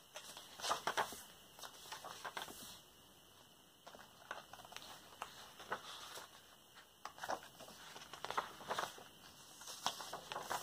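Paper pages of a handmade notebook being turned by hand: soft, irregular rustles and flicks, including a translucent pink vellum page.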